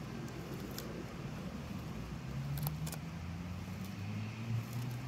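Sulcata tortoise biting off grass and clover: a few crisp snips, two of them close together about two and a half seconds in. Under them runs a steady low motor hum that drifts slightly in pitch.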